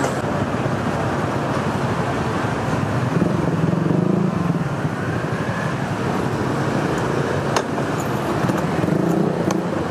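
Street traffic: a steady rumble of vehicles passing, with one engine louder for a moment about three to four seconds in, and a short sharp click a little later.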